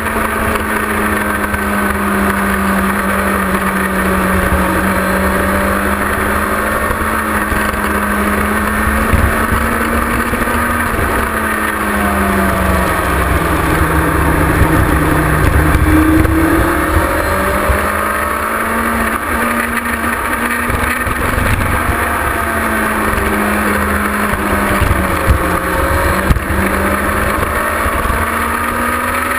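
Kawasaki ZX-6R (G2) sports bike's inline-four engine running hard on track, its note dipping about halfway through and climbing again near the end, under heavy wind rumble on the microphone.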